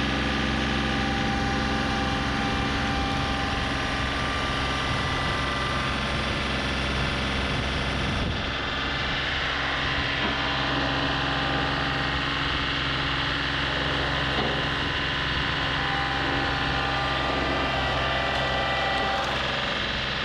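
John Deere 3038E compact tractor's diesel engine running steadily while the front loader bucket works at a tree stump, digging into the dirt and roots.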